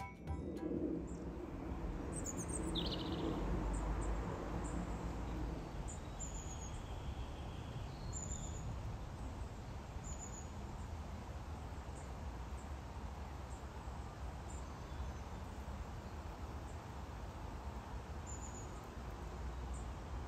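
Outdoor ambience: birds chirping now and then, short high chirps every few seconds, over a steady background rush.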